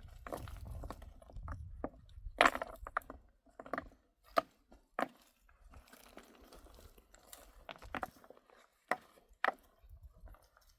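A series of irregular sharp knocks and crunches, loudest about two and a half seconds in, with scattered single knocks later.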